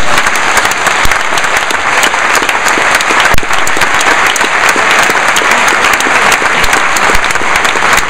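Theatre audience applauding, a dense steady clapping that stops abruptly at a cut.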